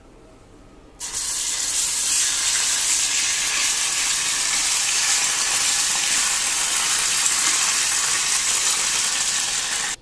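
Green chilli, garlic and ginger paste sizzling loudly in hot desi ghee in a steel kadhai as it is roasted. The hiss starts suddenly about a second in, when the paste goes into the hot fat, runs steadily and cuts off near the end.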